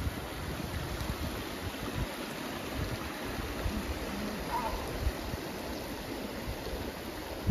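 Shallow mountain stream rushing steadily over a rocky bed, with irregular low gusts of wind buffeting the microphone.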